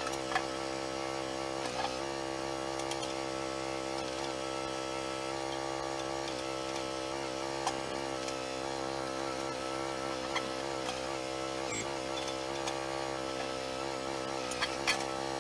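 A motor running at a steady speed, with a few light clicks over it.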